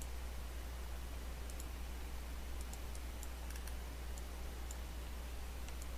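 Quiet room tone with a steady low hum and a dozen or so faint, scattered clicks from the computer's mouse and keyboard.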